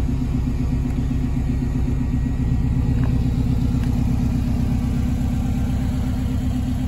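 Subaru WRX turbocharged flat-four engine, mounted in the rear of a classic Mini, idling steadily.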